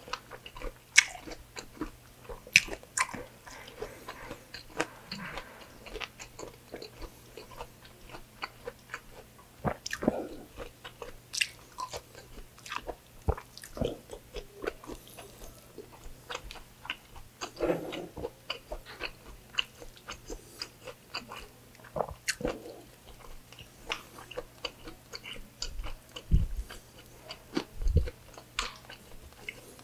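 Close-miked chewing and mouth sounds of a person eating braised pork belly adobo and rice by hand: many sharp, irregular smacks and wet clicks.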